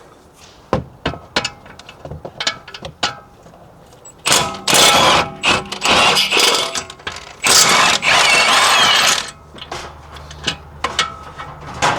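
A power wrench runs in two loud bursts of about two seconds each, undoing the two E16 Torx bolts that hold a brake caliper. Light clicks and clinks of tools and sockets come before and after.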